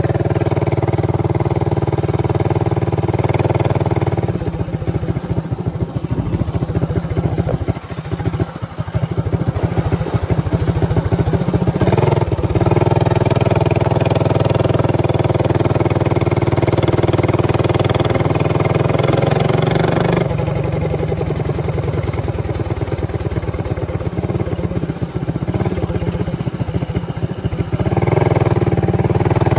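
Motovox minibike's modified Predator 224cc single-cylinder engine running hard and steady under load. Twice, from about four seconds in to about twelve and again from about twenty to twenty-eight, the throttle eases off and the engine goes choppy and uneven before pulling back up to its steady note.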